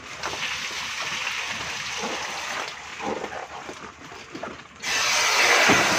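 A thin hose hissing into a clear plastic bag as live fish are bagged for transport, a steady rushing hiss that gets much louder about five seconds in.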